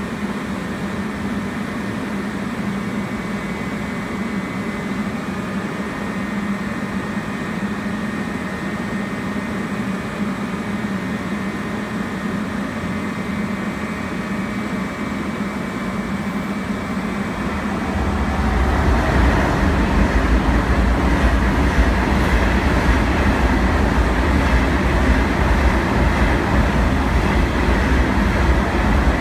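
Refurbished resistance-control Seoul Metro Line 1 electric train standing at the platform, its rooftop air conditioners and onboard machinery giving a steady hum with a fixed pitch. About 18 seconds in, a much louder, pulsing low rumble joins in and keeps going.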